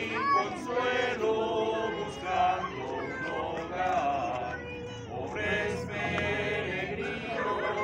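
A small group of men's and women's voices singing a traditional Las Posadas song together, unaccompanied, with a short break between lines about five seconds in.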